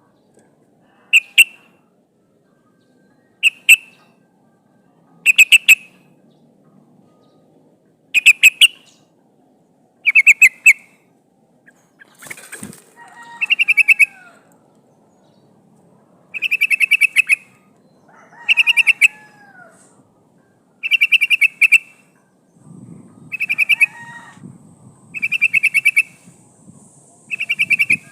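Yellow-vented bulbul (trucukan) giving short bursts of fast bubbly chattering about every two seconds, some with a lower slurred note. It is the call of a female in breeding condition calling for males. A sharp click sounds once, about halfway through.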